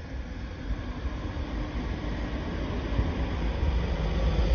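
Low rumble of a motor vehicle approaching, growing steadily louder.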